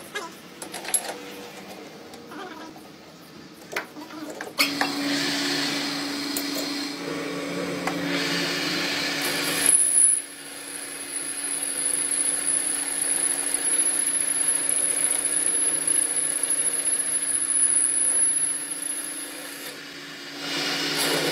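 Metal lathe turning a steel bar: a few handling knocks and clicks as the workpiece is fitted, then the machine runs with a steady hum from about four seconds in while the cutting tool takes its cut. A thin high whine sounds over it for about ten seconds in the middle.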